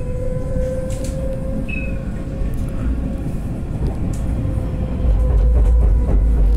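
Alstom Citadis 405 tram running, with a steady electric whine over a low rumble that grows louder about five seconds in.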